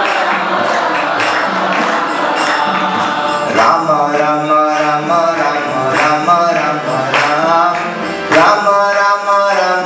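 Tabla playing throughout. From about three and a half seconds in, a man sings a devotional chant over it.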